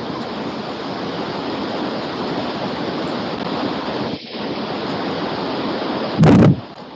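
Steady rushing noise picked up by an open microphone on a video call, with a short dropout about four seconds in and a brief, much louder burst of noise near the end.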